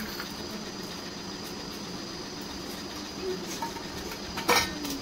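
Steady hissing background noise, with a single sharp clink about four and a half seconds in.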